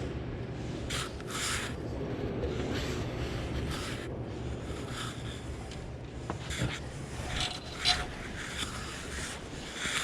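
Scattered short scuffs, rustles and scrapes over a steady low rumble, as of people moving about and handling the camera.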